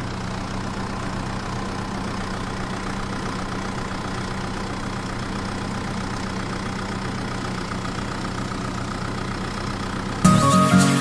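An engine idling steadily with a low, even hum. About ten seconds in it cuts off abruptly and louder music with bright mallet-like notes and a falling tone begins.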